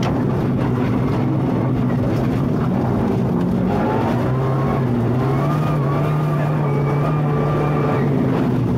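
Rally car engine heard from inside the cabin, running steadily under load, its pitch stepping and gliding up and down a few times.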